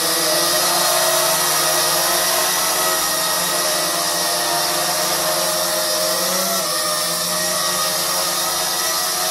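JDRC JD-20S toy quadcopter in flight, its small electric motors and propellers giving a steady whine. The pitch shifts briefly about six and a half seconds in.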